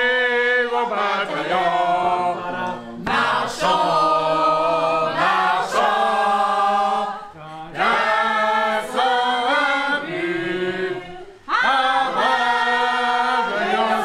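A group of voices singing together unaccompanied, in long held phrases of about four seconds with short breaths between them.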